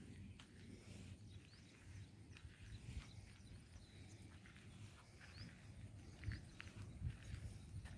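Faint rural outdoor ambience: a few brief high bird chirps and soft footsteps on a dirt track over a low rumble on the microphone.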